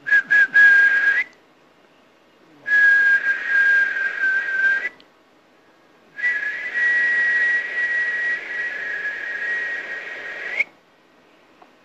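A man whistling three long, breathy whistles, each held on a steady high pitch. The third is the longest, about four seconds.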